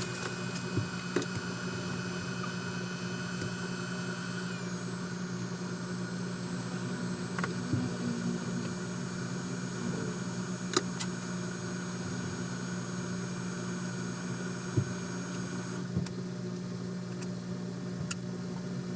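Steady hum of electrical equipment running, with several high-pitched whines that shift pitch twice and a few light clicks.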